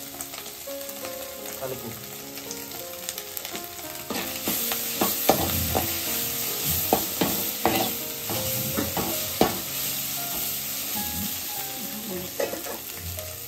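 A metal spatula stirs and scrapes scrambled egg and spices around a metal kadai while the food sizzles. The scrapes and knocks against the pan grow louder and more frequent from about four seconds in.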